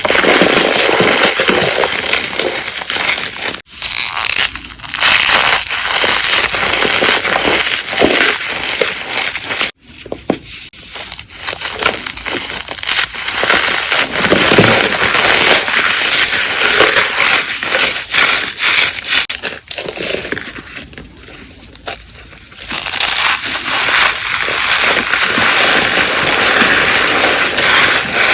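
Blocks of gym chalk being crushed and crumbled, a dense squeaky crunching and crackling. It breaks off briefly about 4 and 10 seconds in, and eases off for a while a little after 20 seconds.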